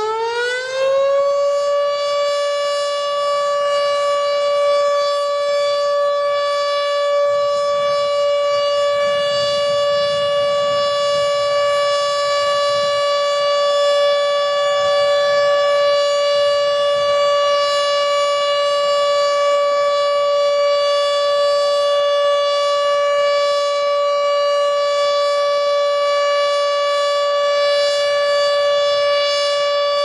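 HOR Siro-Drone outdoor warning siren sounding a steady tone: its pitch finishes winding up about a second in, then holds level with many overtones.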